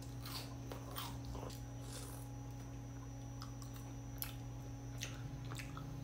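A person chewing a mouthful of fried chicken close to the microphone: faint soft crunches and wet mouth clicks, irregularly spaced, over a low steady electrical hum.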